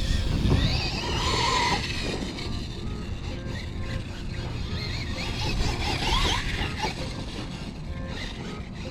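Losi LMT radio-controlled monster truck's electric motor whining, repeatedly rising and falling in pitch as the throttle is worked, over the drivetrain's steady running noise.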